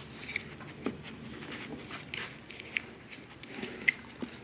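Faint, scattered clicks and taps from an excited dog moving about close by, with a few short sharp ticks.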